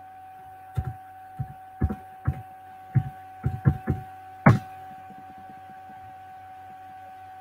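About a dozen uneven knocks and bumps over some four seconds, the last and loudest about four and a half seconds in: handling noise as the device with the built-in microphone is moved. A steady electrical hum with a constant high tone runs underneath.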